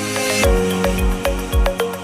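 Electronic background music: a swell builds, then about half a second in a beat drops in with a kick drum about twice a second under sustained chords.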